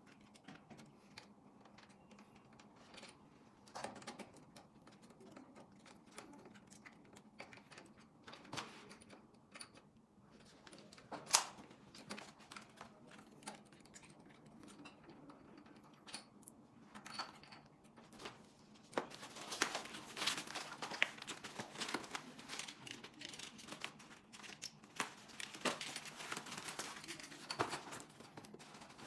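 Scattered clicks and small metal knocks of a folding hex-key multi-tool and stem clamp parts being handled, then, about two-thirds of the way through, a denser crinkling and tearing of foam packaging wrap being cut and pulled off a new e-bike's handlebar.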